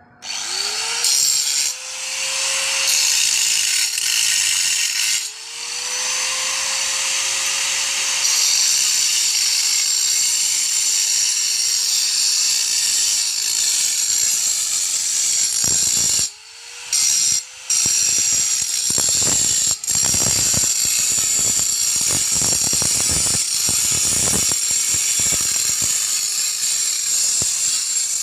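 Power tool cutting stone: a loud, steady, hissing grind that breaks off briefly a few times. The motor's hum rises in pitch as it picks up again after a pause.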